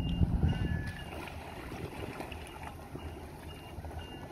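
Motorboat engine running under power as the bowrider drives up onto a drive-on floating boat lift. It is loudest in the first second, then eases back. A short high beep repeats about twice a second over it.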